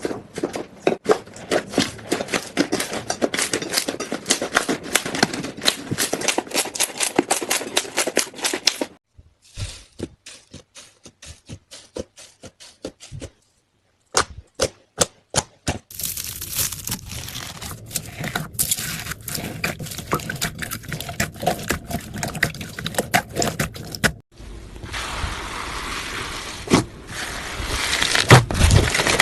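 Slime being squished and poked by hand, giving off quick crackling, popping clicks in dense runs, broken into several stretches by short pauses.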